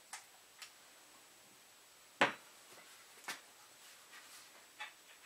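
A few sharp knocks and light clicks from a Savage 10FXP bolt-action rifle being handled as its barreled action is worked loose from the stock after the action screws are undone. The loudest knock comes about two seconds in, a smaller one a second later.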